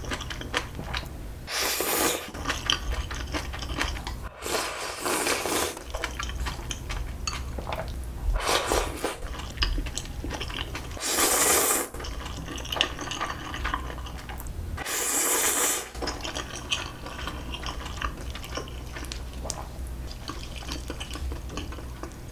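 Close-miked slurping of Chapagetti black-bean-sauce instant noodles: five long slurps of about a second each, the loudest about halfway through. Between them come chewing and small clicks of chopsticks and a spoon.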